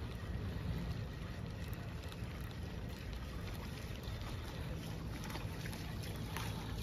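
Steady wind rumble buffeting the microphone.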